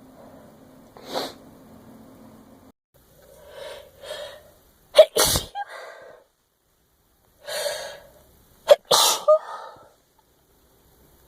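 A woman sneezing twice, about five and nine seconds in. Before each sneeze she takes a couple of catching breaths in.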